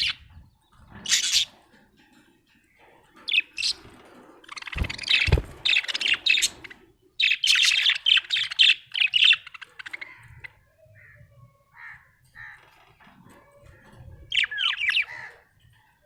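Budgerigar chirping and warbling in quick bursts of high chatter, with quieter gaps between; two low thumps about five seconds in.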